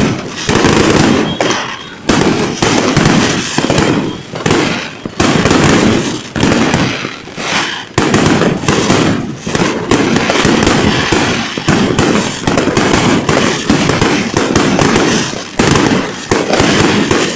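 Fireworks going off in a loud, continuous barrage: many bangs and crackles overlapping, with fresh surges every second or two.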